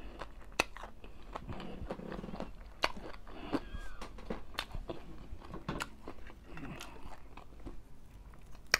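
A person chewing food close to the microphone: soft wet mouth sounds with many small smacks and clicks. A louder, sharper crunch comes near the end as a fried piece is bitten.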